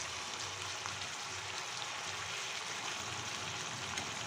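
Mushroom and potato curry sizzling in a kadai over a gas flame: a steady, even hiss as it finishes cooking.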